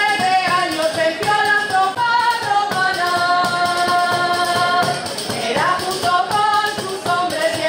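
Festive folk music for the dancing giants: a high melody line of quick notes, with one long held note past the middle and a short upward slide soon after, over a steady percussion beat.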